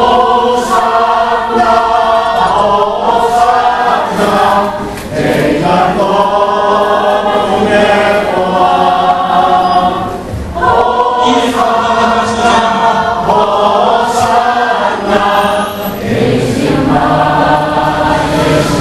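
A small mixed choir of men and women singing together from song sheets, in sustained phrases with short breaks for breath about five, ten and sixteen seconds in.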